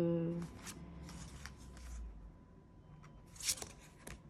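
Thin, large oracle cards being handled and slid against one another: soft papery rustles, with a sharper swish about three and a half seconds in.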